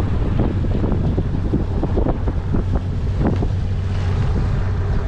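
Bass boat running on its outboard motor: a steady low engine hum under wind buffeting the microphone, with irregular thumps as the hull slaps the small waves.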